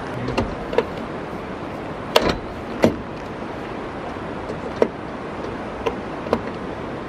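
Sharp clicks and snaps from a hand tool worked on a solar panel's mounting, the loudest two about two and three seconds in, over a steady background rush.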